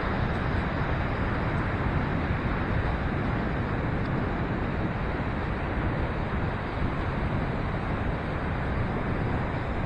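Gusty wind buffeting the microphone, a steady low rushing noise.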